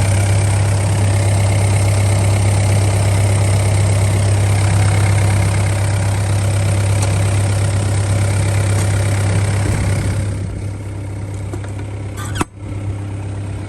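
Yanmar diesel engine of a John Deere 85G excavator idling steadily with a strong low hum. About ten seconds in it becomes a little quieter and duller, and a single sharp knock sounds near the end.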